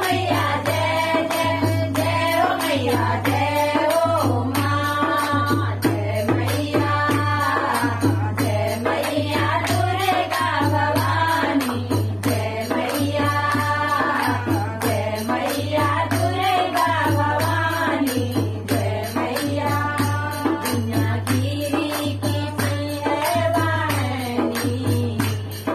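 A group of women singing a Pahari devotional bhajan together, with steady rhythmic hand-clapping and a dholak drum keeping time.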